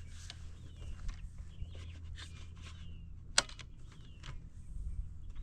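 Wind rumbling on the microphone while a flag is hauled up a flagpole: scattered clicks from the halyard and clips, one sharp knock about three and a half seconds in, and short falling squeaks about once a second.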